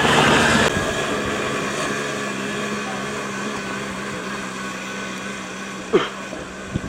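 A motor vehicle's engine running with a steady hum that fades gradually, as if driving away. A single sharp knock about six seconds in.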